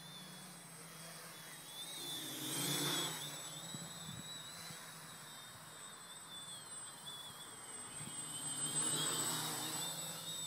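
MultiWii quadcopter's electric motors and propellers buzzing in flight, with a high whine that wavers in pitch. It grows louder twice, about three seconds in and again near the end, as the copter comes close.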